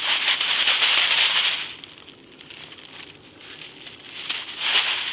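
Crinkling rattle of a collapsible wire-mesh keepnet being handled with live bream inside, as the fish are taken out. It comes in two bursts: a long one at the start and a shorter one near the end.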